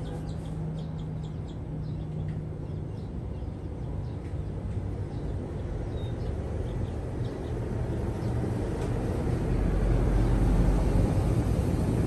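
A low, steady rumble that grows louder over the last few seconds, with a few faint high chirps near the start.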